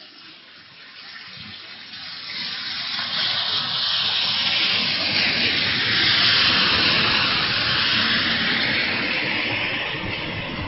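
Heavy rain coming down, swelling about two seconds in from a lighter fall into a loud, hissing downpour that is loudest about six seconds in.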